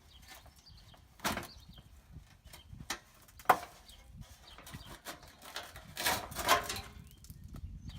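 Car fender being worked loose and lifted off the body: scattered knocks and clunks, a sharp click about three and a half seconds in, and a scraping rattle of the panel around six seconds in.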